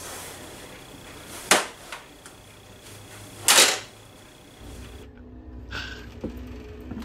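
Two short, sharp knocks or clacks about two seconds apart, the second slightly longer, against a quiet room; near the end the background changes to a steady low hum.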